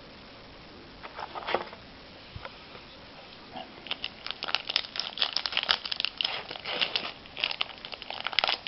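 Foil trading-card pack wrapper crinkling as it is torn open and handled. There are a few soft rustles at first, then steady crisp crinkling from about four seconds in.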